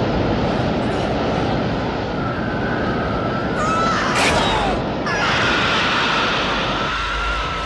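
Film sound effects of an airlock venting: a steady roar of rushing air with a high whistling tone over it, and a shrill screech about four seconds in.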